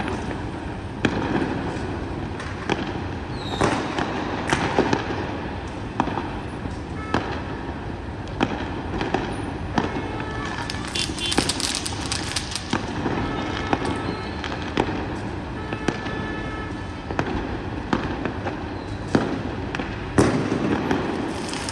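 Fireworks and firecrackers going off: irregular sharp bangs throughout, with a dense stretch of crackling about halfway through, over a steady background of city traffic noise.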